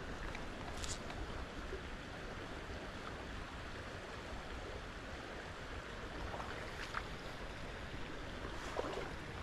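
Small trout stream running steadily over its bed: an even rush of flowing water.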